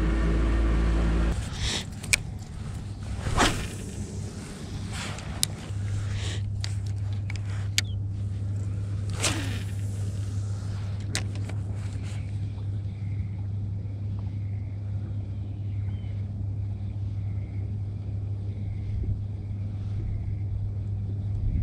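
Boat motor running with a steady low hum, dropping in level about a second in, then running on steadily. Scattered sharp knocks and clicks of fishing rods and gear being handled in the boat during the first ten seconds or so.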